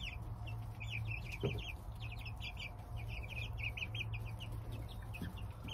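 Young chickens peeping, a rapid string of short high calls several times a second, over a steady low hum, with one light knock about a second and a half in.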